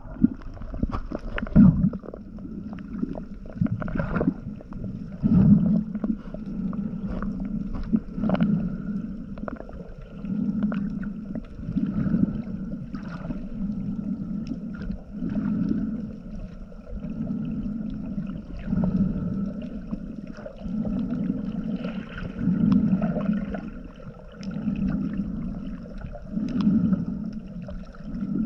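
Water heard underwater, just below the surface: a low rushing surge about every two seconds, with scattered sharp clicks and a faint steady hum.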